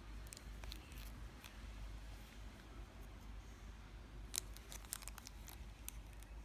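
Plastic wrapper on a Zippo lighter crinkling as it is handled, with scattered light clicks, several close together about four to six seconds in.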